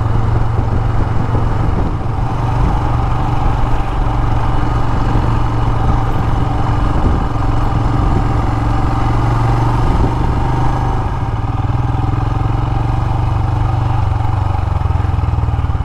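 Royal Enfield Himalayan's single-cylinder engine running steadily on the move, a constant motorcycle engine note with road and wind noise.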